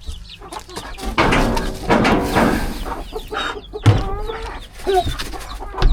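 Chickens clucking around the coop, with a couple of sharp knocks.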